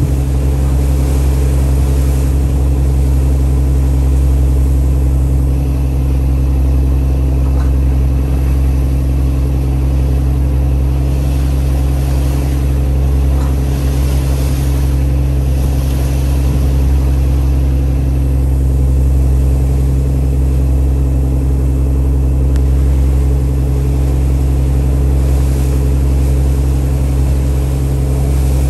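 Boat's engine running steadily under way: a loud, even low hum that holds the same pitch throughout, over a steady hiss.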